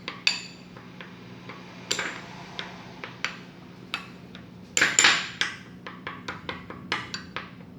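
A spoon knocking and clinking against a bowl in irregular strokes while breaking up Oreo cookies in a little milk, the strikes coming thicker and louder about five seconds in.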